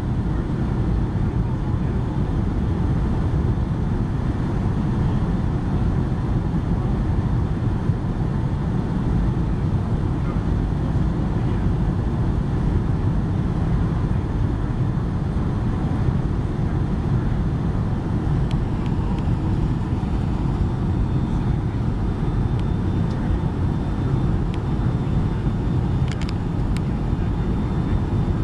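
Steady cabin noise inside a Boeing 757-200 on final approach: jet engine and airflow rumble, mostly low and unchanging.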